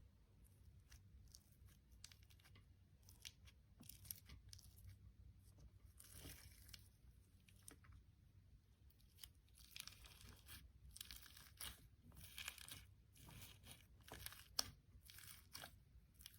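Faint, irregular crackling and tearing of slime being stretched and squeezed by hand, over a low steady hum.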